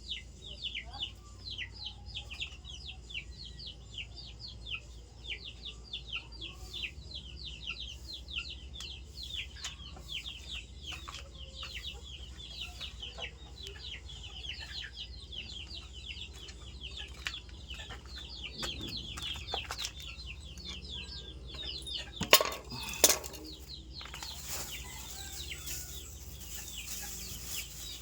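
Birds chirping rapidly and continuously in short, high, falling notes, several a second. Two loud sharp knocks come about two-thirds of the way through, followed by a steady hiss.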